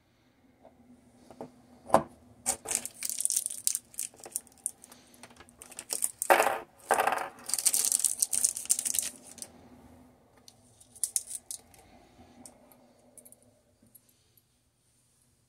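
Small metal screws and mounting hardware clicking and clinking on a tabletop as they are handled, with a sharp knock about two seconds in. From about six to nine seconds a small plastic parts packet rustles as it is torn open and the screws are tipped out, and scattered light clicks follow.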